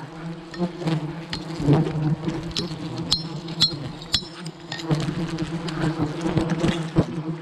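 A swarm of wild honeybees buzzing steadily around their nest, with a handful of sharp clicks in the middle.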